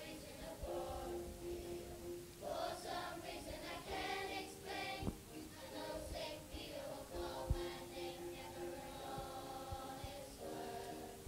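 A group of children singing together as a choir, holding and changing notes. Two short knocks partway through.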